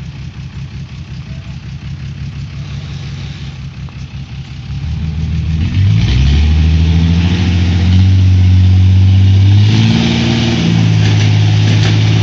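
Small dump truck's engine idling, then revved up about five seconds in and held at a steady higher speed to drive the hydraulic hoist as the loaded tipper bed rises.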